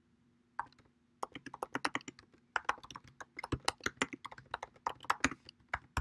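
Typing on a computer keyboard: one keystroke about half a second in, then a quick, steady run of key clicks.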